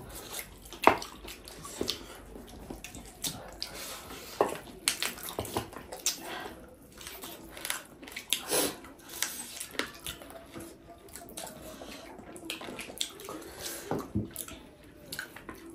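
Close-up chewing and wet mouth smacking while eating tough buffalo meat, with many irregular short clicks and slurps.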